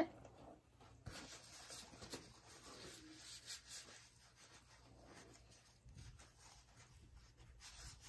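Near silence with faint light scratching and rustling, most of it in the first half.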